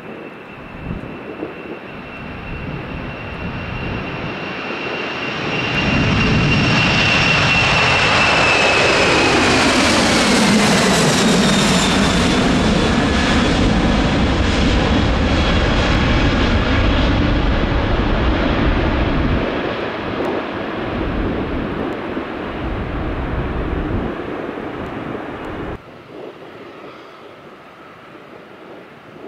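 Boeing 747 freighter's four jet engines at takeoff power, growing louder as it rolls toward and past, then lifting off. Its high whine and deeper rumble drop sharply in pitch as it passes, and the sound slowly fades as it climbs away. Near the end it cuts off abruptly to a quieter, steady engine noise.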